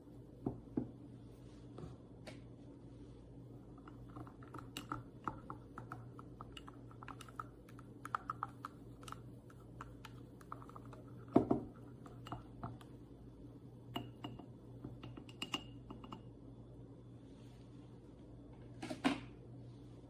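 Irregular small clicks and taps of a hand-pressed portable espresso maker's parts being handled, with louder knocks about eleven seconds in and again near the end, over a low steady hum.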